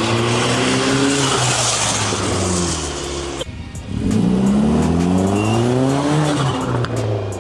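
Hyundai Genesis Coupe accelerating hard past, its engine revving up in pitch. It eases off briefly about halfway through, then revs up again.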